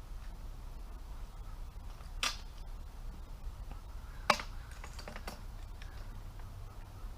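Two sharp knocks about two seconds apart, followed by a few fainter clicks, over a low steady rumble.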